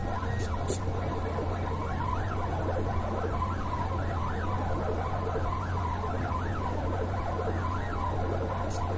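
NEMA 17 stepper motors of a GRBL-controlled pen plotter whining as the pen writes small lettering, the pitch rising and falling in quick short arcs with each stroke, over a steady low hum. A few short clicks come about a second in and near the end.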